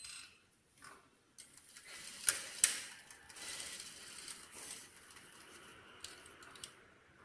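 Juki industrial lockstitch sewing machine running a short burst of stitching through shirt fabric, with two sharp mechanical clicks about two seconds in, the loudest sounds, and a couple of lighter clicks near the end.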